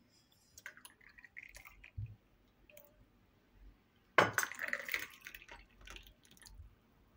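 Dishes and glasses clinking as they are handled and set down, with water being poured, and one louder clatter about four seconds in.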